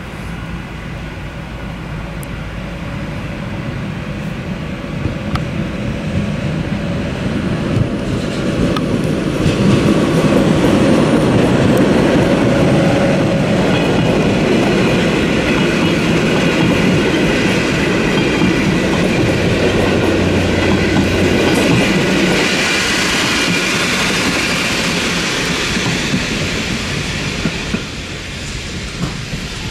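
SJ Intercity passenger train rolling through a level crossing, its carriage wheels clicking over the rail joints. The noise builds over the first ten seconds, stays loud with a hissing edge in its later part, then falls away sharply near the end as the last carriage clears.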